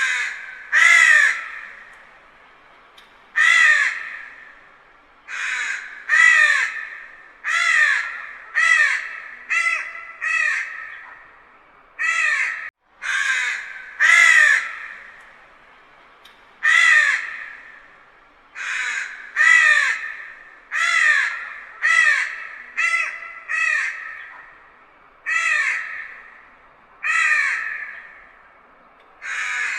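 Distant crow cawing over and over: about twenty harsh caws in uneven runs of roughly one a second, each trailing off in an echo.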